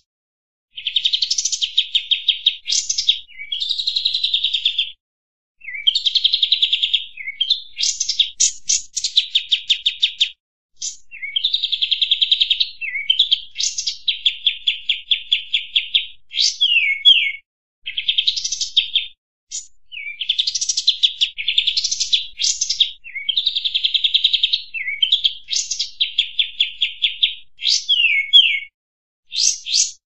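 Kapas tembak bulbul singing a long, loud song of rapid trilled phrases and quick downward-sweeping notes, with short pauses between the phrases.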